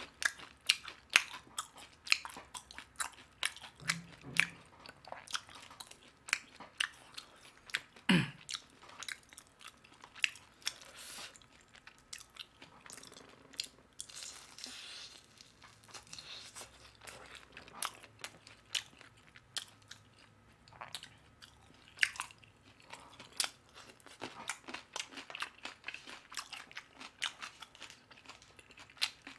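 Crispy Korean fried chicken being bitten and chewed close to a microphone: a dense run of sharp crunches and chewing. The loudest bites come near the start, about 8 seconds in and about 22 seconds in.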